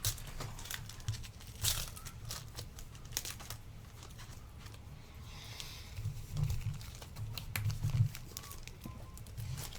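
Foil trading-card pack wrapper crinkling and tearing as it is opened, with irregular sharp crackles and a few dull knocks from handling.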